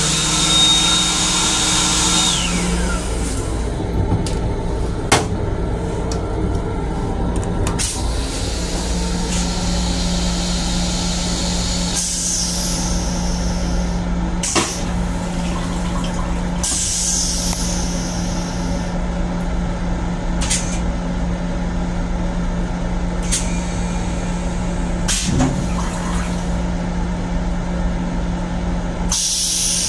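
Interior rumble of a Long Island Rail Road M7 electric multiple-unit car in motion, with a steady electrical hum. It is heard from inside the car's small restroom. There are a few sharp clicks and several hissing swells. A high whine at the start holds for about two seconds and then falls away.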